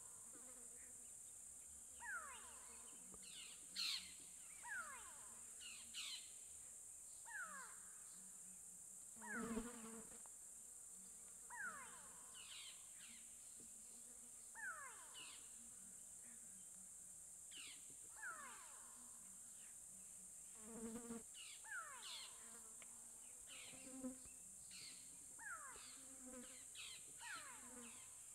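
Faint wild bush ambience: a steady high-pitched insect chorus, with short falling whistled calls, likely a bird, repeating every second or two. Two brief low rustles stand out, one about a third of the way in and one about three-quarters through.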